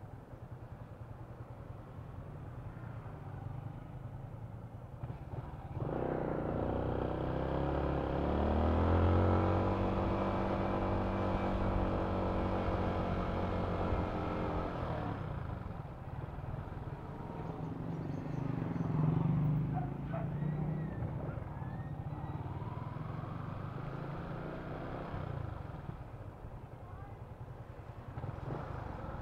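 Yamaha Sniper 155's single-cylinder engine running while riding at low speed, with a low rumble at first; about six seconds in it revs up and holds higher revs for several seconds, rising and falling, then eases back to a quieter run.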